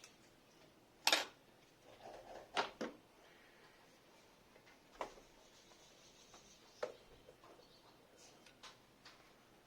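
Hand tools and metal parts being handled during workshop repair: a handful of separate sharp clicks and knocks with quiet between them.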